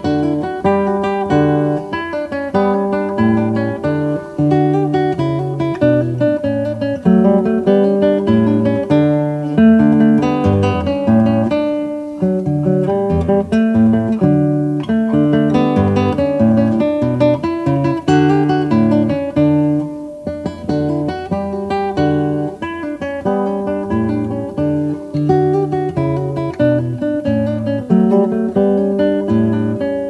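Acoustic guitar music: a continuous run of plucked notes and chords.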